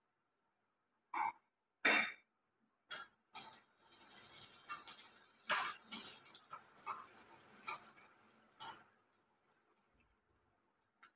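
A few knocks of crockery on the counter, then a metal spatula scraping and clattering against a wok as food is stirred for about five seconds.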